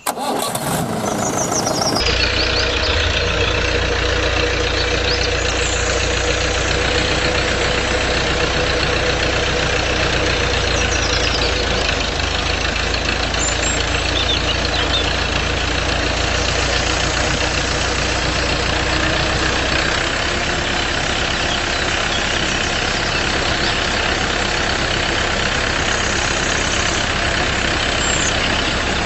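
A tractor engine idling steadily, with a low, even hum.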